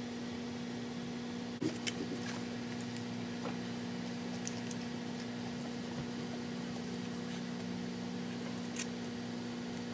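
A metal fork cutting and scraping food on a foam plate, giving a few light clicks, most of them about two seconds in and one near the end, over a steady low hum.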